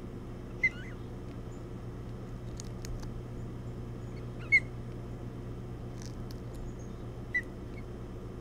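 Ospreys at the nest giving three short, high chirps, the middle one the loudest, over a steady low hum.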